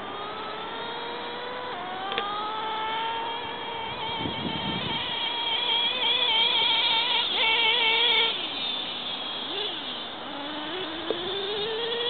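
Electric RC plane's brushless motor and propeller whining in flight, the pitch climbing and wavering as it grows loudest. About eight seconds in the pitch drops sharply, then swoops up and down several times as the plane turns and the throttle changes.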